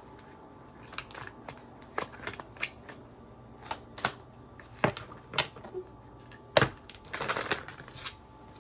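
Tarot cards being handled: scattered light clicks and snaps of the cards, the sharpest about six and a half seconds in, followed by a short burst of shuffling.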